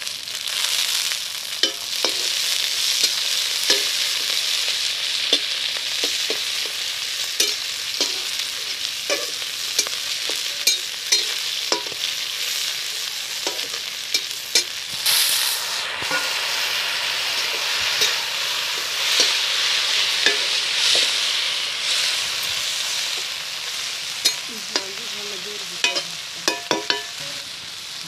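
Sliced onion and green chilli sizzling in hot oil in an iron kadai, stirred with a metal spatula that scrapes and taps against the pan in repeated sharp clicks over the steady frying hiss.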